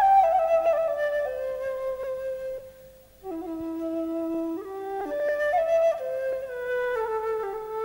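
Background music: a solo flute playing a slow melody of held notes, one note at a time, with a brief pause about three seconds in before the line resumes.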